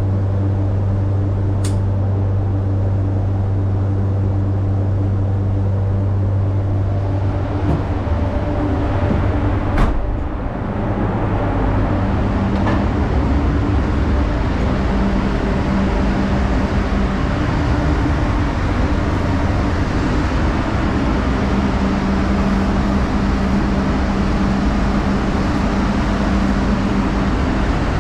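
Paint spray booth's air system running with a steady, loud hum. About eight seconds in, the lowest hum drops away and a broader rush of air takes over, with a sharp click just before ten seconds.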